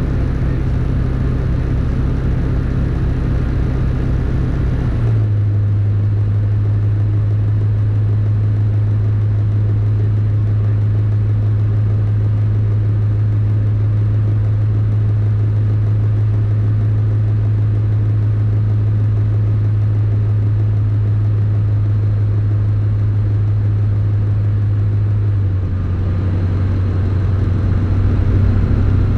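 Rotax 912 four-cylinder engine and propeller of an APM 20 Lionceau light aircraft, a loud steady drone heard inside the cockpit in flight. The pitch drops and the hiss thins abruptly about five seconds in, and the tone shifts again near the end.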